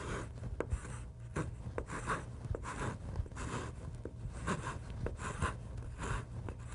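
Wood rasp scraping across a balsa wood dragster blank in repeated hand strokes, about two a second, cutting down and shaping a corner of the body.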